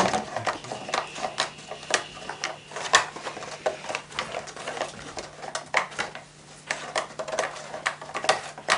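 Irregular sharp clicks and knocks of chestnut-wood laths being worked at the ends of a woven basket, about two or three a second.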